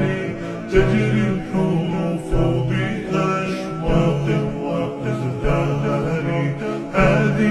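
Music: a song with layered singing voices over a steady musical backing.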